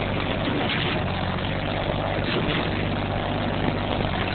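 Kubota compact tractor-backhoe's diesel engine running steadily at working speed, with a constant low hum under a rough, noisy rumble.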